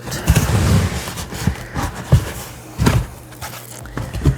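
Cardboard advent-calendar boxes being handled and fitted together: a series of light knocks and rubs, about half a dozen, irregularly spaced.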